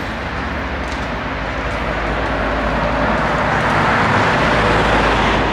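Street traffic with a steady low rumble, as a passing vehicle swells to its loudest about four to five seconds in and then begins to fade.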